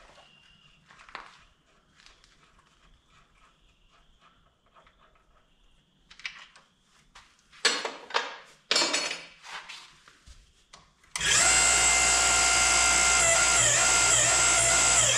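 Metal clinks and a few sharp clanks of hand tools on the tractor's bolts. About eleven seconds in, the hydraulic splitting stand's power unit starts abruptly and runs steadily with a loud whining hum, its pitch dipping slightly as the control valves are worked.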